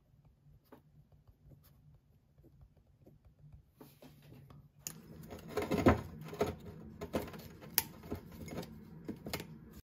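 Faint light scratching and tapping of a pen writing in a notebook. About five seconds in, louder paper rustling and sharp clicks as a paper drip-coffee bag is handled and hooked onto a ceramic mug.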